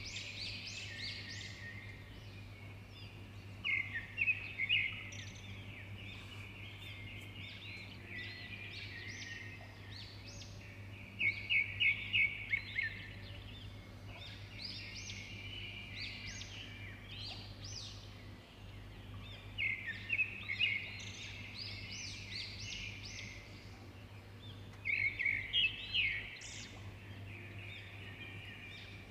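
Small birds chirping throughout, with four louder bursts of rapid trilled calls, over a low steady hum.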